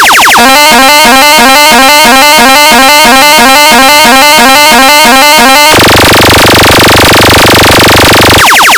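Very loud electronic competition track made for speaker sound checks: a repeating horn-like synth figure of about three notes a second. About six seconds in it switches to a dense held buzz with heavy bass, then to fast sweeping notes near the end.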